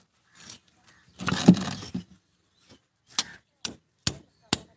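A thin steel rod scraping loudly against concrete and brick as it is pulled out of a crack, about a second in. From about three seconds in come sharp, ringing hammer strikes on the steel rod, about two a second.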